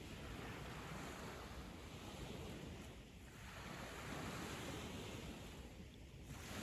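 Sea waves washing onto a sandy beach, the surf swelling and ebbing, easing off about three seconds in and again near the end before the next wave builds.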